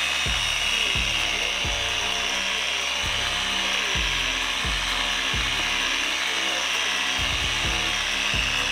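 Dual-action orbital polisher with a foam pad running steadily on a sanded plastic headlight lens during the polishing step. Background hip-hop music with a regular kick-drum beat plays over it.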